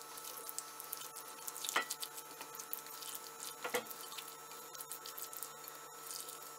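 Silicone spatula stirring and folding a mayonnaise-and-yogurt dressed potato and egg salad in a bowl: soft, faint wet squishing, with two sharper knocks about two seconds apart.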